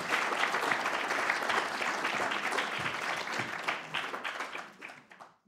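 Audience applauding: a dense patter of many hands clapping, fading away over the last second or so.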